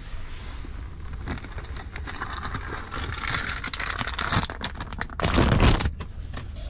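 Clear plastic bag crinkling and rustling as a car charging adapter is handled and pulled out of it, rising to a louder rustle and thump about five seconds in. A steady low rumble runs underneath.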